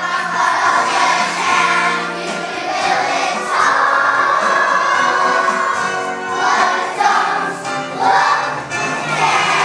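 A choir of young children singing together with musical accompaniment.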